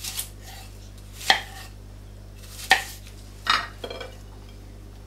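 Chef's knife cutting an onion into chunks on a wooden cutting board: a few separate sharp knocks of the blade striking the board, about a second apart.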